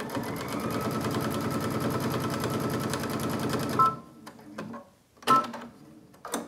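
Brother XV Dream Machine sewing a straight stitch: it speeds up to a fast, even run of needle strokes and stops just under four seconds in. A short two-tone beep sounds as it stops, and another beep about a second and a half later.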